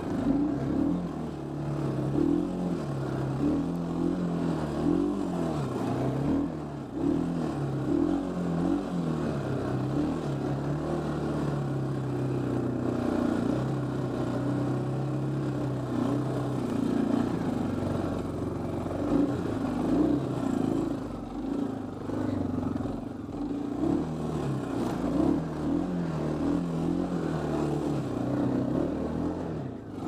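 Honda TRX350 FourTrax quad's single-cylinder four-stroke engine running at low speed, its revs rising and falling with the throttle, holding steadier for a few seconds midway.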